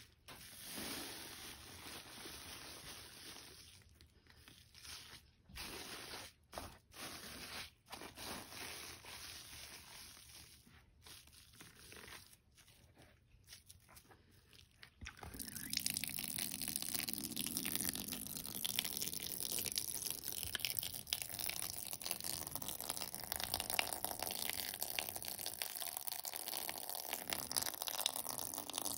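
Soaked, soapy sponges being squeezed: wet squelching and crunching squeezes broken by short pauses, then about halfway through a louder, steady rush of water and suds as a sponge is wrung out and rinsed.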